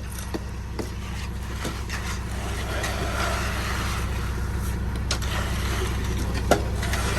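An engine runs steadily with a low hum, while short knocks and scrapes of hand tools working wet concrete come and go, one louder knock near the end.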